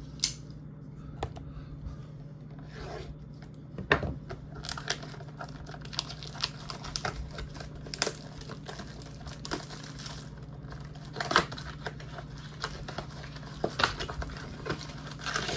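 Tearing and rustling as a trading-card blaster box and its card-pack wrappers are opened, with scattered sharp clicks and taps from handling.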